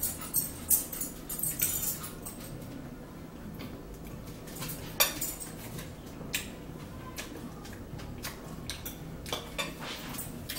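A metal fork clinking and scraping against a ceramic salad bowl: a scatter of irregular sharp clicks.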